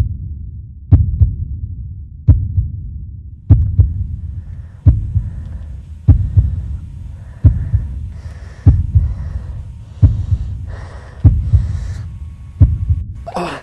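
Heartbeat sound effect: heavy paired low thumps, lub-dub, about every 1.3 seconds over a low rumble. A fainter hiss comes and goes between the beats in the second half.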